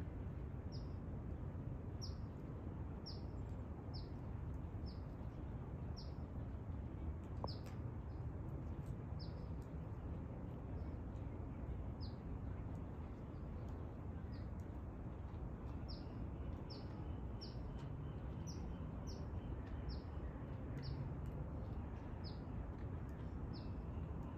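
A bird chirping over and over: short, high notes that slide downward, about one a second, over a steady low outdoor rumble.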